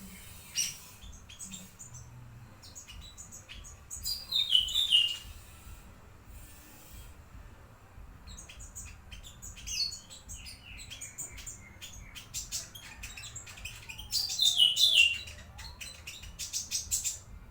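A songbird singing: scattered sharp chirps and clicks with two loud runs of quickly falling whistled notes, song of the kind played as a masteran tutor recording to teach white-rumped shamas.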